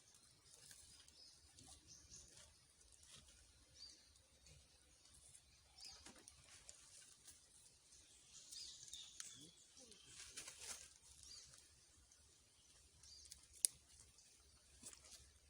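Faint outdoor ambience with scattered high-pitched chirps, busier in the middle, and one sharp click near the end.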